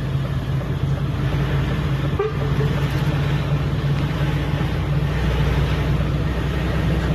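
Heavy vehicle engines running in a steady low drone, with a short horn toot about two seconds in.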